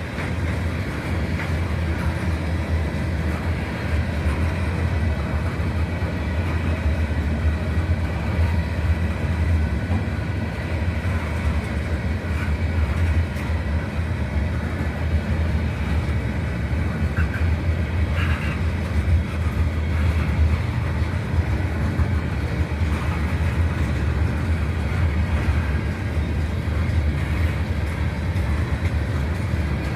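Freight train cars rolling past at track side: a steady rumble of steel wheels on rail.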